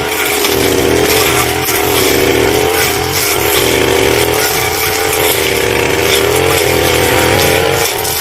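Petrol brush cutter running at high throttle under load, its pitch wavering as it cuts, with a brief drop in revs near the end.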